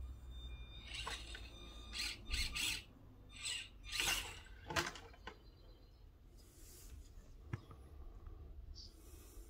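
Small electric motor and gears of an Axial SCX24 1:24 scale crawler whining in several short bursts as it is throttled on and off, with one sharp knock about seven and a half seconds in.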